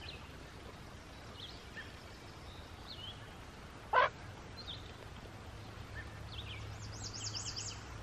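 Songbirds chirping, with a rapid warbling trill near the end, and one short, sharp yip from a puppy about halfway through as it plays with a kitten.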